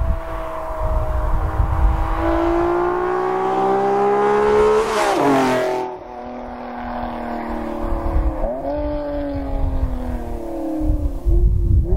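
Honda NSX V6 with DCSport headers, Angus resonated test pipes and Taitec GT Lightweight exhaust doing a fly-by. The exhaust note climbs steadily in pitch as the car accelerates toward the microphone, with a loud rush as it passes about five seconds in. The pitch then drops and the note fades as it pulls away, with another brief pitch change about eight and a half seconds in.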